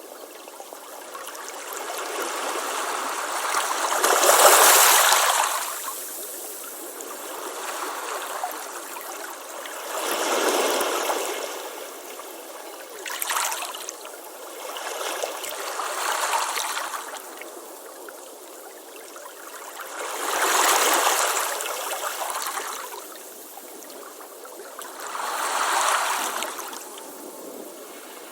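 Ocean waves breaking and washing up a beach, a surge of surf rising and falling about every five seconds, with a short sharp splash about halfway through.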